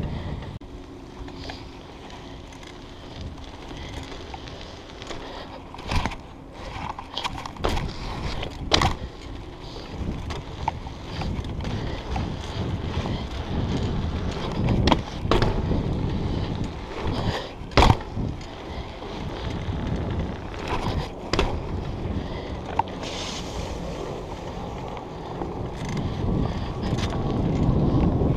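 BMX bike rolling over pavement: a steady tyre rumble with wind on the microphone, broken by scattered sharp knocks and rattles from the bike going over bumps and joints.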